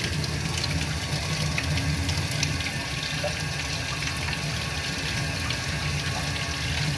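Steady rushing noise with a low hum: the Hyundai Kona running while it is checked for its steering-wheel rubbing noise.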